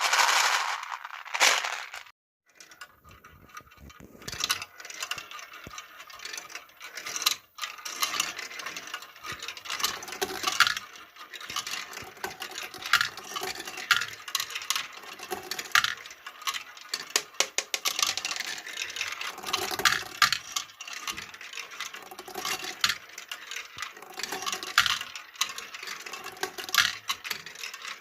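Marbles rolling and clattering down a wooden HABA block marble run, with many sharp clicks as they knock against the wooden pieces and drop from level to level. A louder rush of rolling noise comes in the first two seconds.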